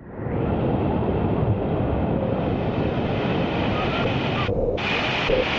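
Steady rushing noise of falling water from a jungle waterfall, building up over the first half second and then even.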